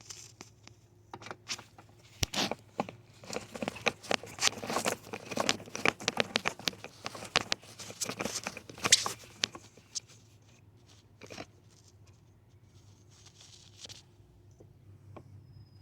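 Socket ratchet on a long extension with a 10 mm socket, working a nut loose in irregular runs of clicking and rattling, densest in the middle and thinning out after about ten seconds to a few single clicks.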